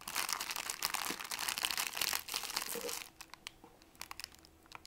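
A plastic Kit Kat snack bag crinkling as it is handled, with dense crackling for about three seconds and then only a few scattered crinkles.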